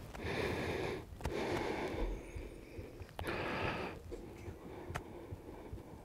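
A person's breathing, a few soft breaths about a second each, mostly in the first four seconds.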